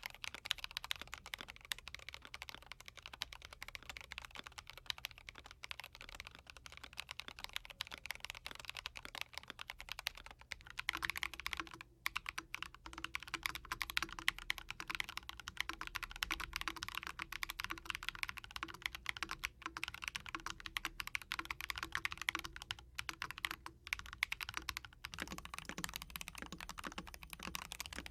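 Fast typing on three mechanical keyboards in turn. First a GMMK Pro with Tecsee Carrot switches. About eleven seconds in, the sound changes to a GMMK Compact with Gateron Beer switches and PBT keycaps. Near the end it changes again to a Keychron V1 with Drop Holy Panda X switches.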